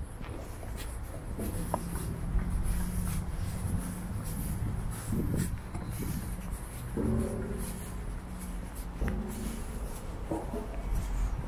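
Outdoor walking ambience: a steady low rumble of wind and distant traffic, light footsteps on a paved path, and a few short, scattered pitched calls.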